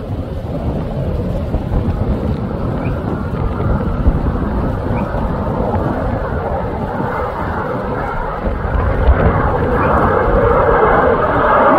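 Fighter jet flying in on approach to land: steady jet-engine rumble with a hiss that grows steadily louder as the aircraft nears, strongest near the end.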